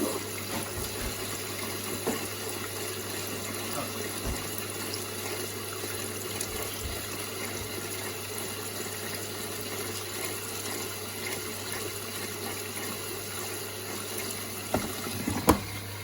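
Indesit IWD61450 washing machine taking in water during its service-mode test: a steady rush of incoming water under a low, even hum. A few short knocks sound near the end.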